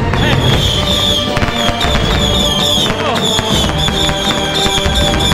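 Firecrackers going off in a dense run of sharp pops, with music playing over them.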